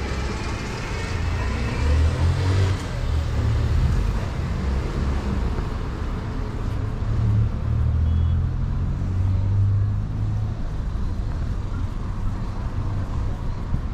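City street traffic: motor vehicles passing, with a steady low engine and tyre rumble that swells a couple of times.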